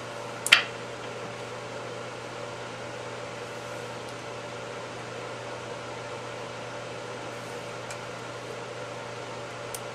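A steady machine hum fills the room. A sharp click comes about half a second in, and two faint clicks come near the end, as metal fuel-rail parts and tools are handled.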